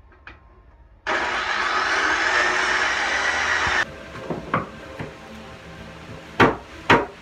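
A corded power tool runs loudly for about three seconds and cuts off abruptly. Then come a few sharp hammer blows on a steel pry bar as old hardwood floorboards are pried up; the two loudest are near the end.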